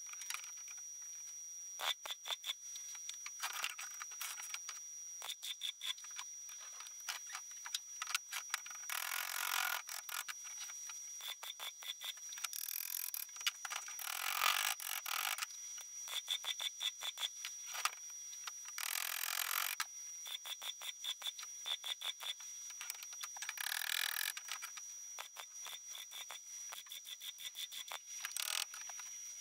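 Welding on a steel exhaust manifold collector: several crackling arc bursts of about a second each, with fast irregular ticking between them and a steady high whine.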